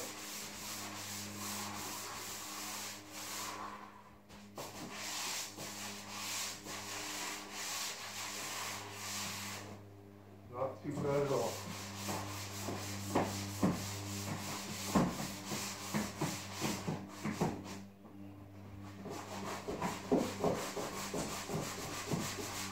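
Drywall joint compound being sanded by hand: repeated rubbing strokes across the plastered wall, stopping briefly three times, over a faint steady hum.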